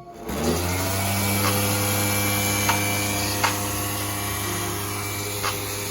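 The motorcycle's electric radiator cooling fans spinning up and then running steadily, a constant hum with hiss, with a few faint clicks.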